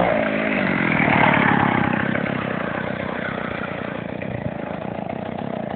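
Small two-stroke chainsaw engine on a homemade scooter coming off the throttle: the revs drop sharply at the start and it settles into an uneven idle that slowly fades.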